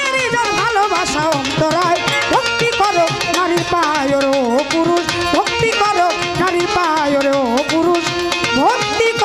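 Bengali Baul folk music: a violin playing a sliding, ornamented melody over tabla drumming.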